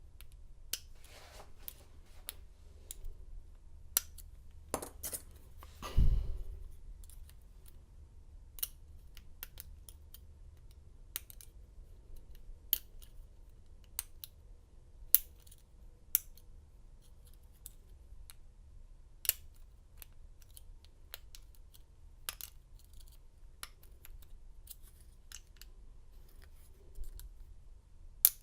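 Small, irregular metallic clicks from a lock pick and tension wrench working the pin stack of an American 1100 padlock, with a heavier knock about six seconds in.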